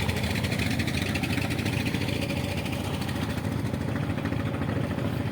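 An engine running steadily at an even idle-like pace, with a fast, regular pulsing beat.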